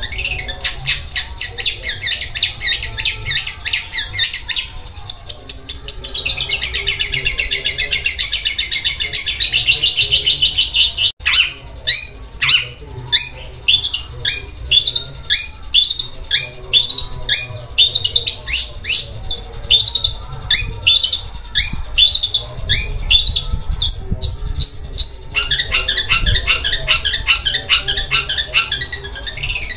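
Long-tailed shrike (cendet) singing a harsh, rapid chatter like a sewing machine. It opens with fast runs of repeated notes, turns into a dense buzzing about a fifth of the way in, then gives a long series of quick downward-sweeping notes. A fast run of repeated notes returns near the end.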